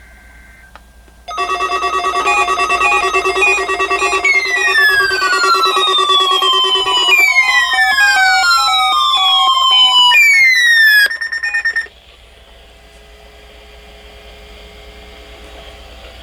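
Electronic jingle of layered beeping tones with repeated falling pitch sweeps, cutting off abruptly about twelve seconds in and leaving a faint radio hiss.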